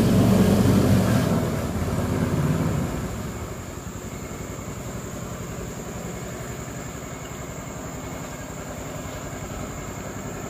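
Small motorboat engine running under throttle, loudest for the first few seconds, then settling into a steady run.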